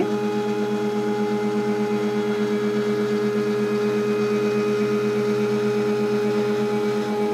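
MakerBot Replicator One 3D printer's stepper motors running at a steady speed: a constant humming whine with a fast flutter that starts abruptly.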